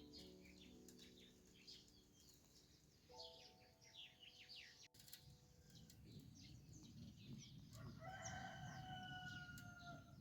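Faint rooster crowing near the end, over small birds chirping and soft held tones of background music.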